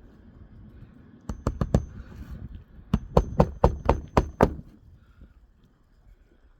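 Hammer blows on a shingle roof: a quick group of four strikes, then after a short pause a run of about eight more, with a faint metallic ring over some of them.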